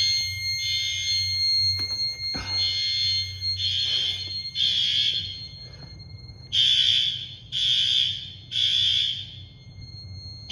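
Building fire alarm sounding the temporal-three evacuation signal: three high-pitched half-second blasts, then a pause of about a second and a half, repeating about three times.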